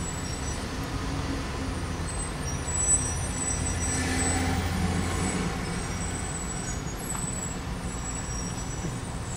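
Road traffic heard from a car in a queue of stopped vehicles: a steady low engine rumble with trucks close by. A brief louder spike comes about three seconds in.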